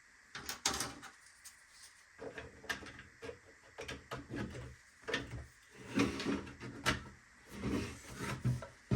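3D-printed plastic parts clicking, knocking and sliding as they are handled and dry-fitted together by their slot-in tabs, in a string of short irregular clicks.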